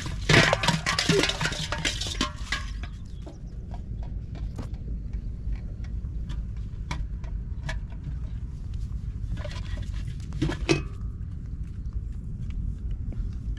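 Metal clattering and rattling from an aluminium pot as a freshly hooked fish and line are dropped into it, dense for the first two or three seconds. A shorter clatter comes about ten seconds in, with scattered light clicks and a steady low rumble throughout.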